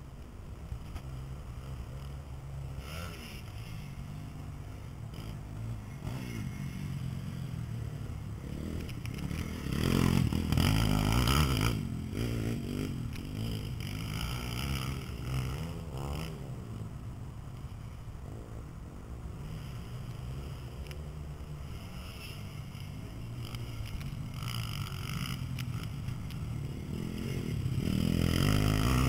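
Pit bike engines running on a dirt track, getting louder as a bike comes close about ten seconds in and again near the end.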